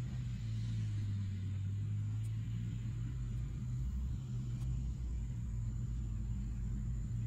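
Heavy diesel engines of a Hitachi mining excavator and a BelAZ haul truck running, a steady low drone.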